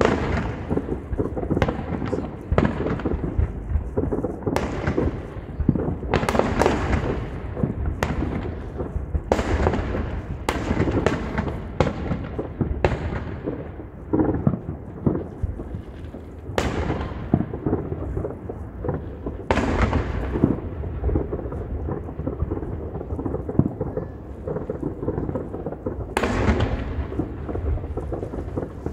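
Many aerial fireworks going off across a town: more than a dozen sharp bangs, each with a rolling, fading tail, over a continuous low rumble and crackle of more distant blasts.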